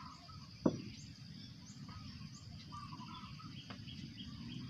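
A steady high insect drone with birds chirping and twittering over it, and one sharp tap about half a second in.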